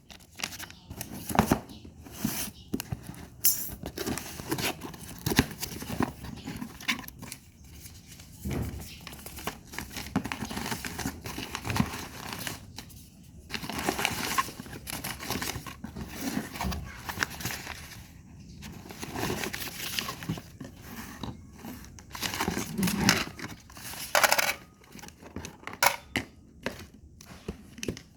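Packaging being handled and unwrapped: crinkling and tearing with irregular clicks and knocks.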